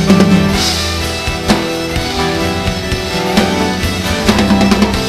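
Live band playing an instrumental passage: drum kit keeping the beat under acoustic guitar, violin and a steady bass line, with no singing.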